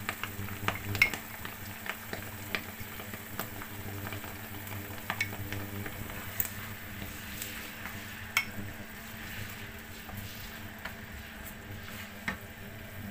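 Chopped onion sizzling in a little sauce in a nonstick wok while a wooden spatula stirs and scrapes it, with sharp knocks of the spatula against the pan every second or few. A steady low hum runs underneath.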